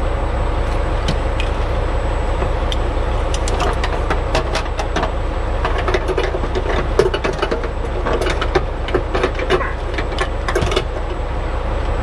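A semi truck's diesel engine idling steadily, with a string of metal clinks and rattles from about three seconds in to near the end as the air lines and chains behind the cab are handled during hook-up.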